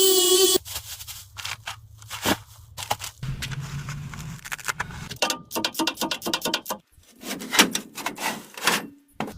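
A steady whine cuts off suddenly just after the start. Then come dense, irregular clicks, scrapes and crackles, like hand work on a hard surface, with a faint low hum under part of it.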